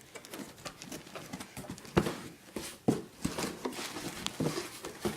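Cardboard box being opened and its contents handled: irregular knocks, taps and rustles, with two sharper knocks about two and three seconds in.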